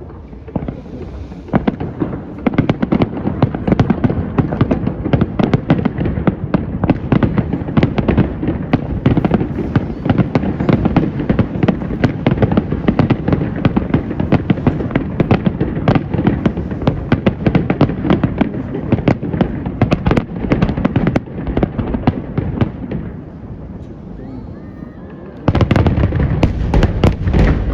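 Fireworks display: a dense, rapid crackling of many small bursts going on for about twenty seconds, easing off, then a sudden louder run of booms and crackle near the end.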